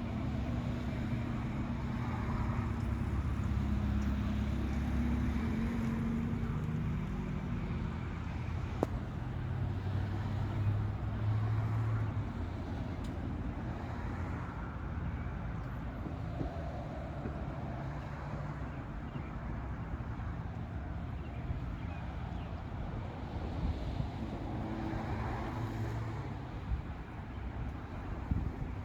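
Steady low rumble of a running motor vehicle with traffic-like noise, louder in the first several seconds and again briefly about ten seconds in.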